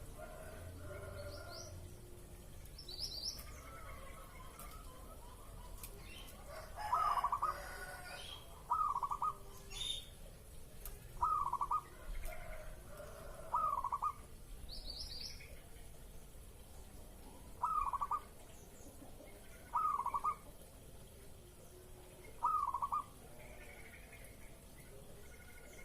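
Zebra dove (perkutut) singing its cooing song: a run of short, rolling coos repeated about every two seconds. A few brief high chirps from another small bird come in between.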